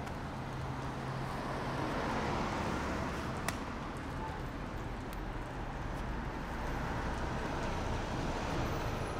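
City street traffic noise, a steady wash of passing cars, with a car drawing up near the end. A single sharp click sounds about three and a half seconds in.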